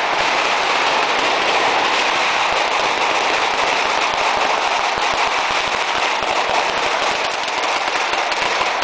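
Firecrackers mounted on a ceremonial fire cart going off in a dense, rapid, unbroken rattle of bangs.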